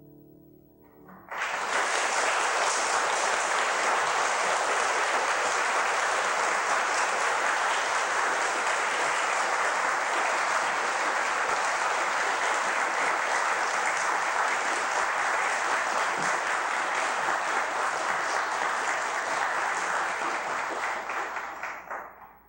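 Audience applauding, starting suddenly about a second in as the last piano chord dies away, then steady for about twenty seconds before fading out near the end.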